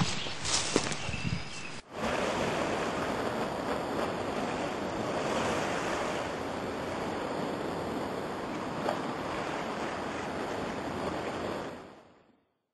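Sea surf washing on a shore with wind, a steady rushing noise that fades out near the end. It comes in sharply about two seconds in, after a few knocks.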